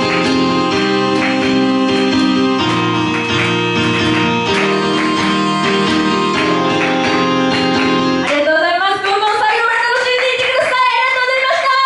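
Electronic backing track with held keyboard chords over a steady beat, a woman singing into a microphone over it. About eight seconds in the bass drops out and a rising sweep builds.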